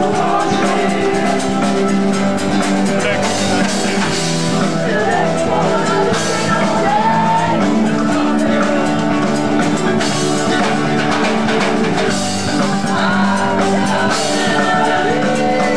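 Live rock band playing: drum kit, electric guitar and bass, with a woman singing over them.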